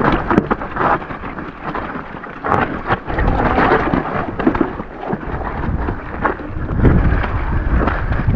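Wind buffeting the microphone over the clatter and rattle of a mountain bike riding down a wet, rough trail. The low wind rumble grows heavier about three seconds in and again near the end.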